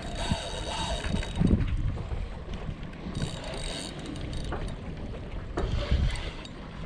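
Wind buffeting the microphone in an uneven low rumble, with the faint whir of a spinning reel being cranked as a fish is reeled in.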